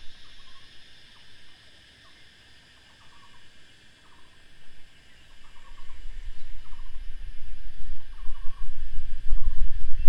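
Steady hiss of heavy rain, with a short trilled animal call repeating about once a second. From about six seconds in, a low rumble swells and grows louder.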